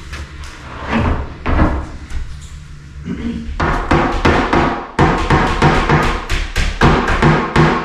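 A few knocks and thuds, then, about halfway through, background music with a steady drum beat and bass starts.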